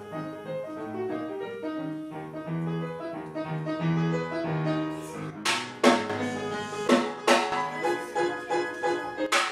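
Live piano playing a lively accompaniment to a silent film. About halfway through it is joined by a string of sharp, loud percussion hits.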